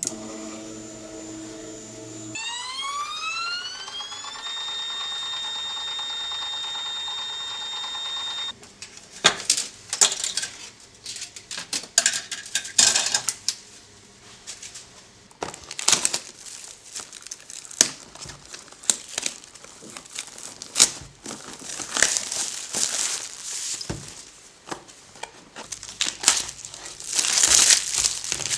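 Ultimaker 2+ feeder stepper motor whining: a low hum, then a pitch that rises and holds as a high steady whine for about four seconds before stopping, as the motor drives filament during the filament change. After that comes irregular crinkling, rustling and clicking of plastic filament and spool being handled.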